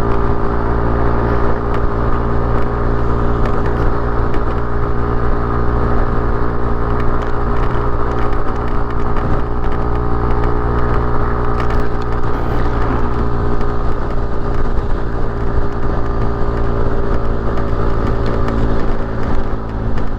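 Motorcycle engine running at a steady speed while riding, its hum holding an even pitch over a constant low rumble.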